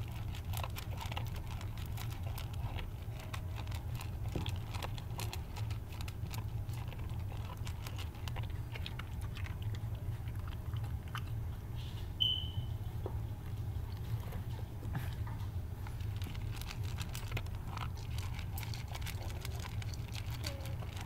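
West Siberian Laika crunching dry kibble from a steel bowl: a steady run of crunches and clicks over a low hum, with one brief high squeak about halfway through.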